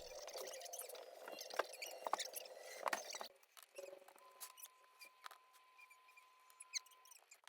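Faint, irregular clicks and light rattling of plastic Lego bricks being handled and pressed together, busiest in the first three seconds, with a faint steady tone for a few seconds in the second half.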